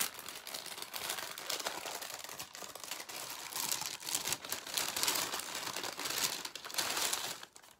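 A striped paper bag crinkling and rustling as it is handled, opened and unpacked by hand, with many small crackles; it stops suddenly near the end.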